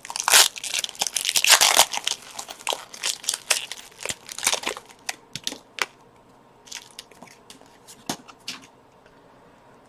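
Foil Pokémon TCG booster pack wrapper crinkling and tearing as it is opened, loud and dense for about the first five seconds, then thinning to scattered lighter crinkles and clicks.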